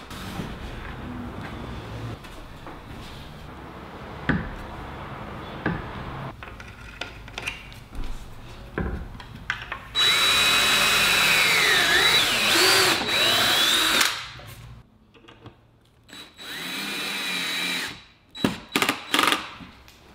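DeWalt cordless drill driving screws to fix a tabletop to its base. It runs in a long burst of about four seconds whose pitch dips and rises again, then a shorter burst of about two seconds. Knocks of wood being handled come before the drilling and a few sharper knocks near the end.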